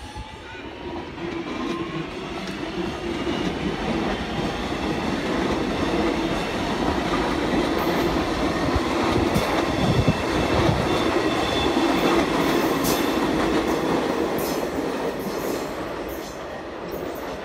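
Train running past on the line, its sound swelling over the first few seconds, staying loud, then easing off near the end.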